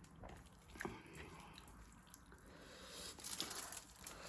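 Faint eating sounds close to the microphone: quiet chewing with a few small clicks, and a soft crunchy rustle growing louder near the end.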